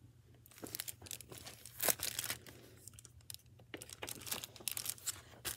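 Crinkling and rustling of a picture book in a clear plastic library cover as it is handled and turned, in short irregular bursts.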